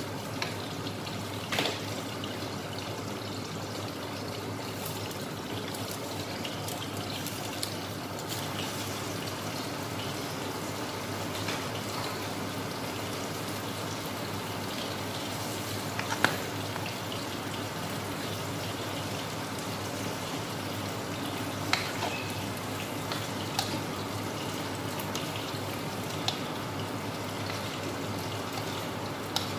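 Chop suey vegetables simmering in sauce in a wok, a steady cooking hiss, with a handful of sharp clicks from a spatula knocking the wok as they are stirred.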